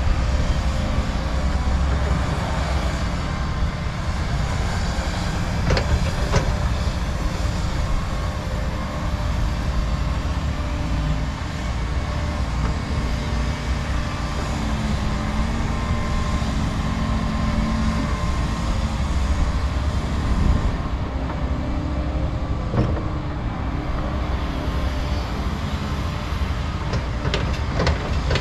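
Cat 335 and Volvo crawler excavators working topsoil: a steady low diesel rumble from their engines, with a few sharp knocks from the digging.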